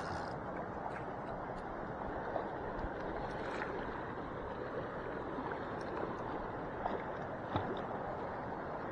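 Steady rush of lake water lapping at the shoreline, with a few faint clicks.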